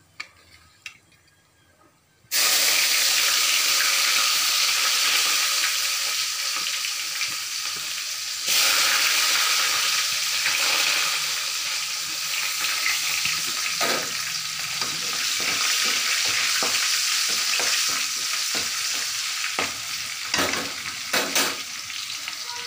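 Hot oil sizzling loudly in a steel kadai as a tempering of mustard seeds and curry leaves fries. The sizzle starts suddenly about two seconds in, after a quiet moment. A few short knocks of the stirring spoon on the pan come later.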